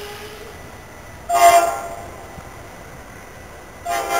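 NJ Transit diesel locomotive's air horn sounding two short blasts about two and a half seconds apart, the second cut off by the end.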